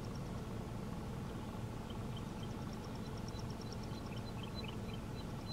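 Quiet outdoor ambience: a steady low hum, with faint high chirping repeating a few times a second from about two seconds in.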